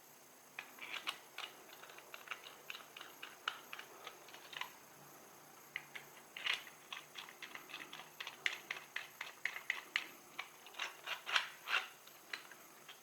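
A rapid, irregular series of small clicks and taps in two runs, with a short pause about five seconds in.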